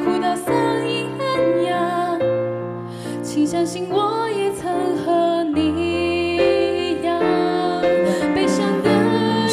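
Young women singing a slow Mandarin pop ballad over a soft backing track; one voice carries the line, and the second singer comes in near the end.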